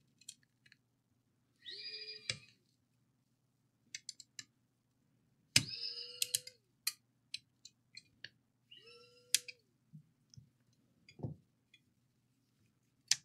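Small cordless electric precision screwdriver whirring in three short runs, each rising to a steady whine and dropping away as it stops, while backing out the screws of a mini PC's cooling fan. Light clicks and taps of screws and metal tools fall in between.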